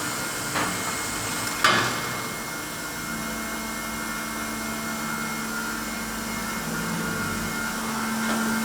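Heat-treatment line machinery running with a steady mechanical hum and whine. A sharp knock a little under two seconds in is the loudest sound, and a lower steady hum comes in about three seconds in.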